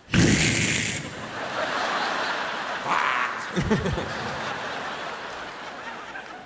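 Theatre audience laughing, breaking out abruptly and loudest for the first second, then carrying on. A short voice sound comes about three and a half seconds in.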